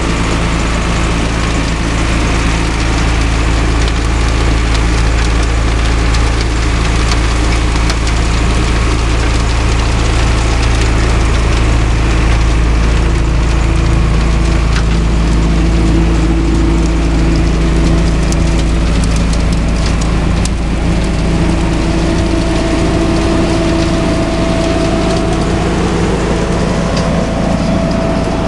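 Tractor-towed road vacuum sweeper working: a steady engine and suction-fan drone, with the hydraulic side brush scrubbing the road and grit ticking through the pickup. A higher whine joins in now and then in the second half.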